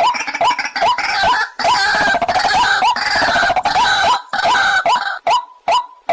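White-breasted waterhen calling: a fast run of short, repeated rising notes with harsher croaking calls over them, thinning near the end into a steady series of single notes about two a second.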